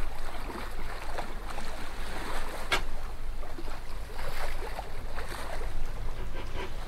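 Water splashing and rushing along the hull of a sailing yacht under way, in irregular splashes over a steady low rumble.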